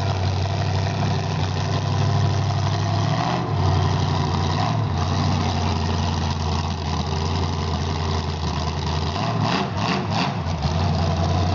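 Newly built C&M racing engine idling on a test run, its steady note dipping briefly a couple of times and turning uneven for a moment about nine to ten seconds in.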